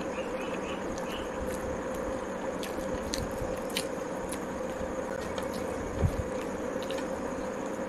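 Fingers tearing a fried poori and scooping vegetable curry from a plate: soft crackles and scattered small clicks, with one dull thump about six seconds in, over a steady background hum.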